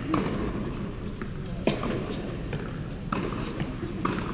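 Tennis rally on an indoor hard court: sharp pops of racket strings hitting the ball about every second and a half, with fainter ball bounces and footfalls between.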